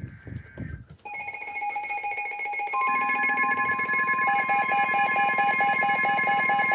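A weather radio's alert alarm: a routine synthesized broadcast cuts off, and several loud steady alarm tones sound together, more joining about three seconds in, with a fast repeating beep added from about four seconds. It signals an incoming severe thunderstorm warning.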